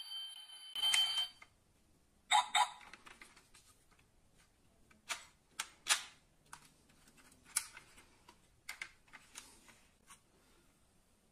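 Scattered sharp clicks and taps from a die-cast metal-and-plastic toy 6x6 truck being handled, its opening parts such as the bonnet snapping and knocking. A steady high-pitched electronic ringing tone cuts off about a second in.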